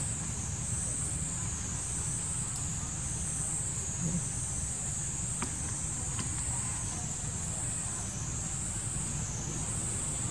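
A steady, high-pitched insect chorus that swells and fades about once a second, over a low, steady rumble, with a few faint ticks.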